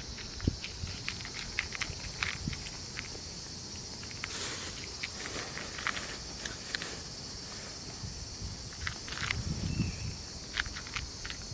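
Outdoor ambience: a steady high-pitched insect hiss, with scattered light clicks and rustles throughout and a soft low thump or two near the end.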